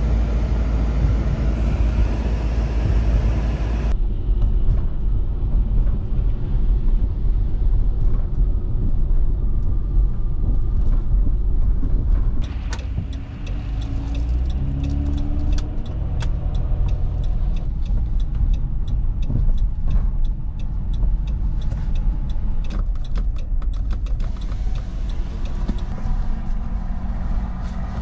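Dodge Grand Caravan van driving, a steady low rumble of engine and road noise. About halfway through the engine note rises, and light clicks and ticks come and go in the second half.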